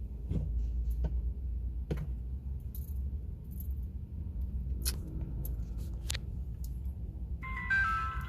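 Low steady rumble of a vehicle with scattered light clicks. Near the end a car's power window motor gives a brief whine.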